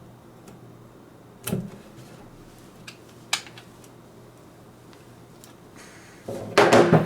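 Something being handled: a knock about a second and a half in, a sharp click a couple of seconds later, then a loud scraping clatter near the end.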